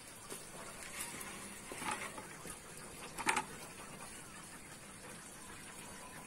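Water splashing and sloshing in a plastic bucket as a live fish is handled in it: a few short splashes, the loudest about three seconds in.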